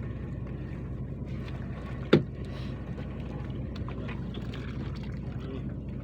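A fishing boat's engine running steadily with a low, even hum. One sharp knock about two seconds in.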